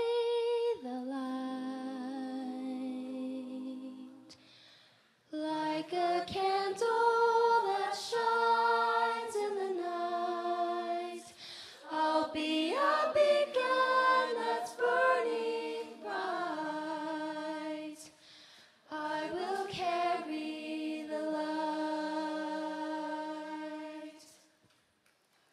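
High-school show choir singing unaccompanied, in sustained chords with a female soloist on a handheld microphone. The singing comes in phrases, with short breaks about five seconds in and again around eighteen seconds, and fades out just before the end.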